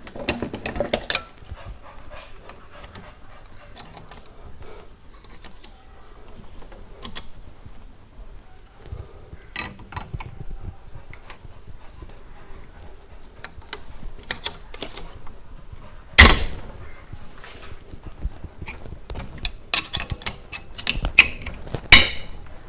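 Metal clinks and knocks of a large 32 mm spanner being worked onto the top fitting of a TVS Phoenix motorcycle rear shock absorber. The knocks are scattered and uneven, with one sharp, loud knock well past the middle and a run of clinks near the end.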